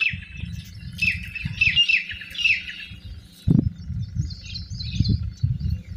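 Small birds chirping in quick runs of short, falling high notes, over an irregular low rumble with a single thump about three and a half seconds in.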